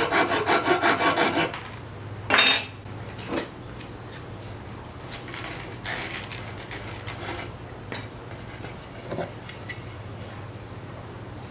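Quick back-and-forth strokes of a small hand saw cutting through a 1/4-inch oak dowel, stopping after about a second and a half. A sharp knock follows about a second later, then a few faint taps.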